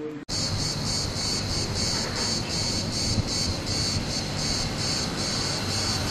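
Insects singing in a steady, high, pulsing chorus, about three pulses a second, over a low rumble of street noise. It starts abruptly just after the beginning.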